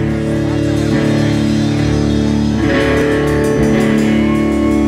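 Electric guitar played live at rock-concert volume, holding ringing chords that are struck again a few times.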